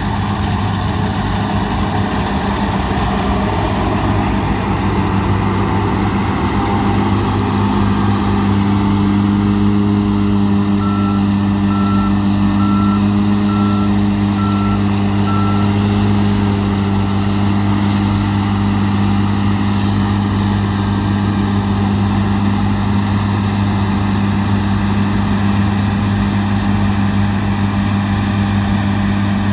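Large harvest machine's diesel engine running steadily and loud. A row of about six short, evenly spaced beeps of one pitch comes around the middle, like a reversing or warning beeper.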